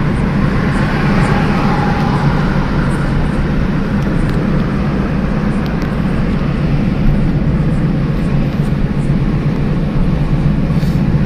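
Steady driving noise inside a car's cabin at highway speed: an unbroken low drone of engine and road noise.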